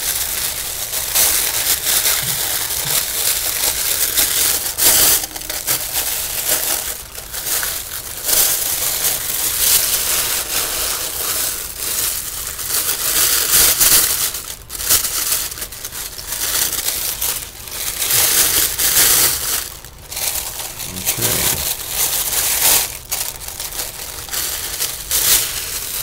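Black tissue paper wrap being pulled off a keyboard: continuous crinkling and rustling of paper, swelling louder and quieter over and over as it is handled.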